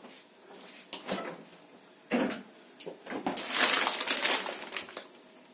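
Kitchen handling sounds: scattered knocks and clicks, a dull thud about two seconds in, and a longer rustling hiss from about three and a half seconds to nearly five.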